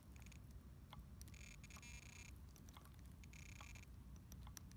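Near silence: a faint low rumble with scattered small clicks and two brief high-pitched buzzes, one about a second in and one a little past the middle.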